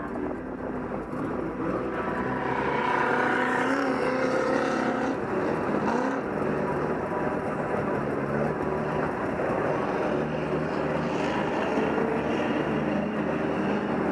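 Sherp ATV's diesel engine running as the machine drives through mud, its revs rising from about two seconds in and then holding fairly steady.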